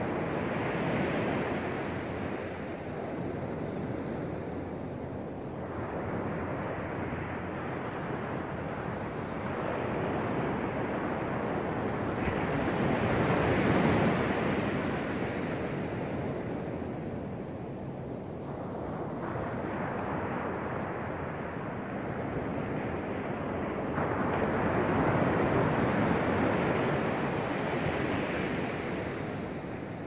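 Small sea waves breaking and washing up on a shell-strewn beach, each one swelling and fading over several seconds.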